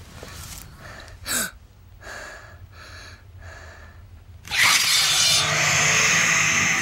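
Edited TV drama soundtrack. A short whooshing sweep comes about a second in, then three soft pulses, then a loud swell of dramatic music and effects bursts in suddenly past the middle and carries on.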